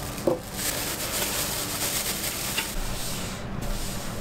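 Fresh breadcrumbs pouring out of a plastic food-processor bowl into a plastic bag, a hissing rustle that stops about three and a half seconds in. It follows a short knock of plastic just after the start.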